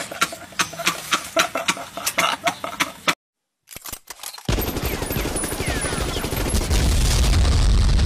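Meme sound effects: a man laughing with sharp clicks mixed in for about three seconds, then after a short gap, a long run of rapid machine-gun fire from about four and a half seconds in, growing louder.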